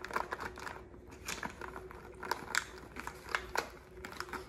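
Small craft beads being raked and picked through by fingers in a plastic tray: an irregular run of light clicks and crackles as the beads rub and tap against each other and the plastic.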